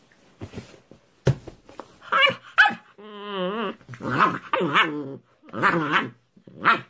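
A puppy growling and barking: two short yaps, then longer wavering grumbling growl-barks.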